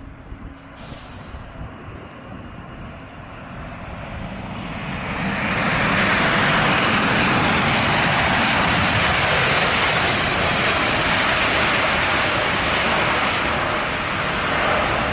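A Boeing 747-8 freighter's four GE GEnx jet engines in reverse thrust during the landing roll-out. A loud rushing roar builds over the first five seconds or so, then holds steady.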